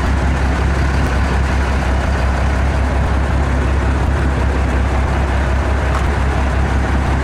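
Fishing boat's engine running steadily: a loud, constant deep hum.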